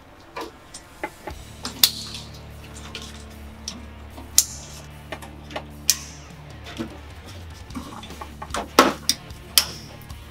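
Scattered clicks, clinks and knocks of DEF hose connectors and fittings being handled and pushed together as a DEF line assembly is fitted, with a quick run of louder clicks near the end.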